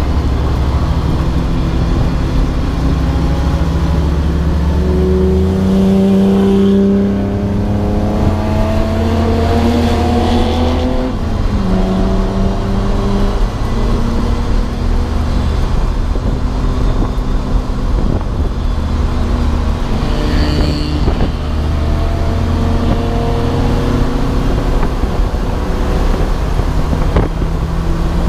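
Race car engine running hard, its pitch climbing in long rises several times and dropping back between them as the driver shifts or lifts.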